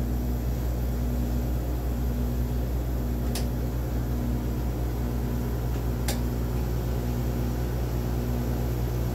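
Steady mechanical hum of a Siemens Dimension EXL 200 clinical chemistry analyzer in standby, with a low tone pulsing on and off about once a second. Two sharp clicks, about three and six seconds in, as its front cabinet doors are unlatched and swung open.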